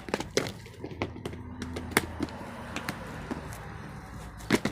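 Dried herbs and seeds being handled: a steady rustle with irregular sharp clicks and taps, the loudest about two seconds in and near the end.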